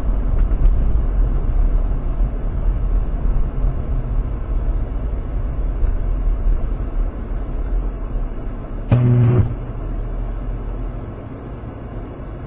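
Car cabin noise picked up by a dashcam: a steady low rumble of engine and road noise while driving. About nine seconds in, a short, flat tone sounds for about half a second, and after it the rumble is quieter while the car sits stopped.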